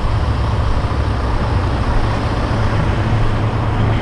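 Steady, loud machinery drone with a low hum underneath, unchanging throughout.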